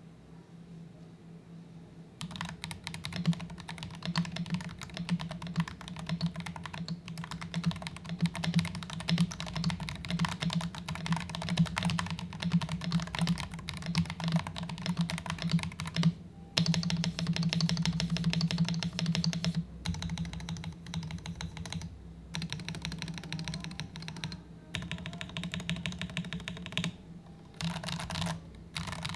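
Typing on an Akko 5075B Plus mechanical keyboard: fast, continuous key clacks that start about two seconds in, with a brief pause in the middle and a few short gaps near the end.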